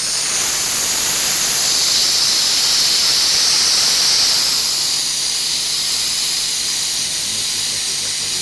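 Loud steady hiss of LPG blowing through a single-door refrigerator's compressor and its copper pipes, flushing out the old compressor oil. It swells a little in the middle and eases slightly after about four seconds.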